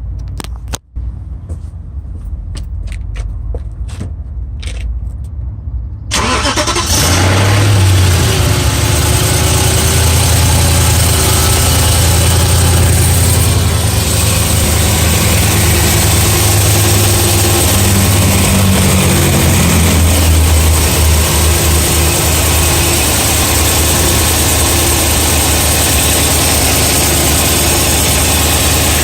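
BMW E92 M3's S65 4.0-litre V8 starting about six seconds in after a few clicks, then running at a steady fast idle. The owner reports a ticking noise from this engine that is loudest when cold and still present warm.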